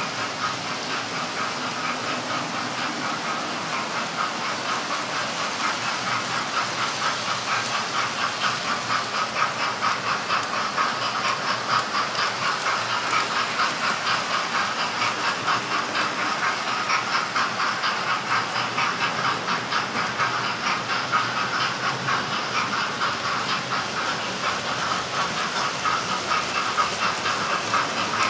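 Model trains running on a layout: a steady whirr of small electric motors with rapid clicking of wheels over the rail joints.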